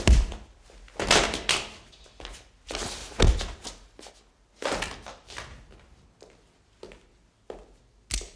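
A series of heavy thuds and knocks at irregular intervals, the loudest in the first few seconds and lighter ones further on, with a sharp crack just before the end.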